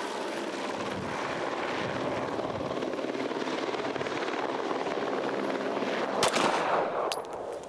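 Light helicopter flying close by, a steady rotor and turbine noise. Just after six seconds in, a couple of sharp pistol shots crack over it.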